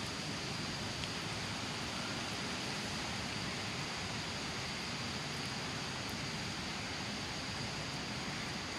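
Steady outdoor background hiss with a faint, even high-pitched drone and no distinct events.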